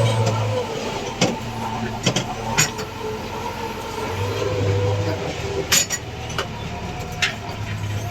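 JCB 3DX backhoe loader's diesel engine running, its revs swelling and easing as it works, with sharp clanks and knocks several times as material is handled.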